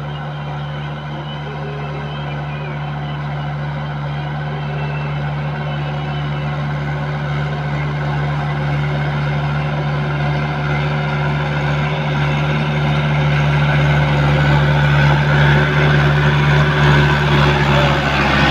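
Diesel farm tractor engine running steadily under load while it ploughs a flooded, muddy paddy field. It grows steadily louder as the tractor approaches.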